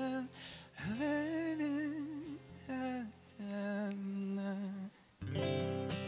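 A man sings long held notes with a wavering vibrato over an acoustic guitar. About five seconds in, a strummed guitar chord rings out and slowly fades.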